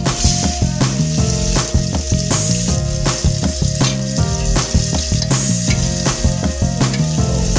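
Chopped onions sizzling as they fry in hot oil in a pressure cooker, over background music with a steady beat.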